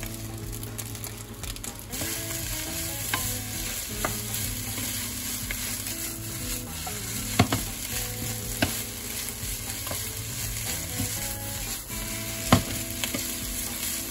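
Fried rice and lettuce sizzling in a nonstick frying pan while a wooden spatula stirs and tosses it, with scraping and light ticks throughout. The sizzle grows louder about two seconds in, and the spatula knocks sharply against the pan twice.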